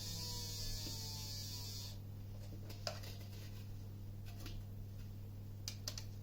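Low steady electrical hum, with faint ringing tones and a hiss that fade out about two seconds in, then a few light clicks, three of them near 3 and 6 seconds.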